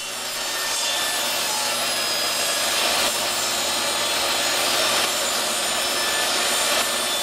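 Table saw running steadily and cutting through a knotty pine board, its blade noise swelling over the first second as the wood is fed in.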